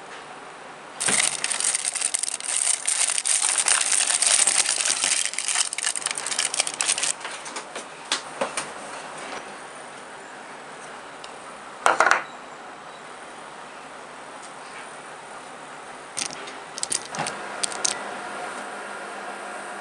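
Foil wrapper of a chocolate bar crinkling and crackling for several seconds as the bar is unwrapped and broken up. About midway there is a single short knock. Near the end a few clicks are followed by a microwave oven starting its steady hum.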